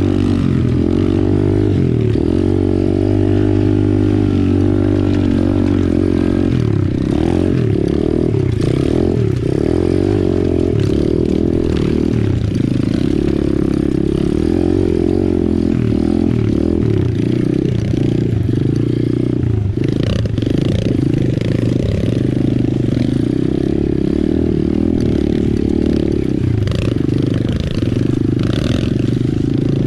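Apollo RFZ 125cc pit bike's single-cylinder four-stroke engine running at low speed, its pitch rising and falling with the throttle over rough ground. Scattered clattering knocks come from the bike jolting over rocks.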